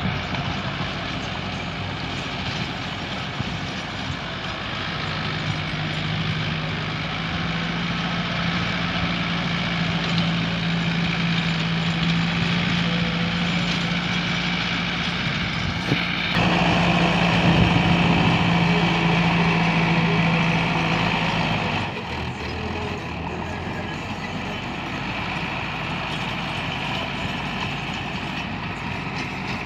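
Tractor engine running under load while its rear rotavator churns the soil, a steady mechanical drone. A steady low hum sits in it for most of the first twenty seconds, and the sound is louder for a stretch starting about sixteen seconds in, dropping back a little after twenty-one seconds.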